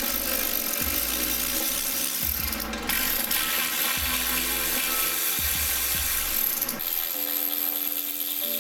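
Cordless electric ratchet whirring as it spins bolts out of the engine-bay brackets, running in long stretches with a brief pause about three seconds in.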